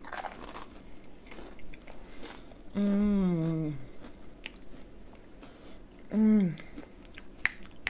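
A person chewing a mouthful of chip and creamy spinach dip, with soft crunches and wet mouth sounds, and two hummed "mmm"s of enjoyment that fall in pitch: a long one about three seconds in and a shorter one about six seconds in.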